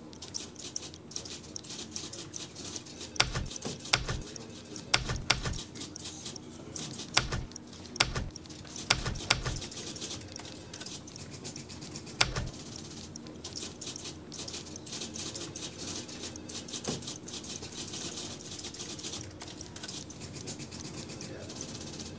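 Manual typewriter keys striking the platen: a scattering of sharp clacks in uneven clusters during the first half, the last one about twelve seconds in. Under them runs a low steady hum with a fine high crackle.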